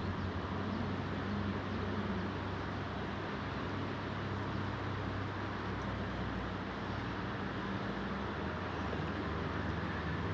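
Steady rushing of a fast-flowing river, even and unbroken, with a low steady hum beneath it.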